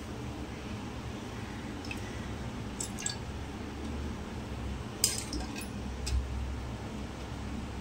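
Cooking oil poured by spoon into a hot metal pot on a gas stove, with a few light clinks of the spoon against the pot, the sharpest about five seconds in, over a steady low hum.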